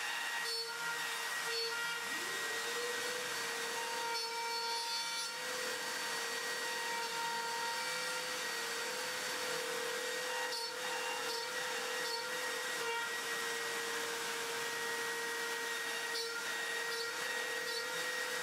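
Makita trim router spindle on an X-Shaper Plus CNC router running with a steady high whine while its bit cuts holes in an MDF spoil board, with harsher cutting noise coming and going a few times.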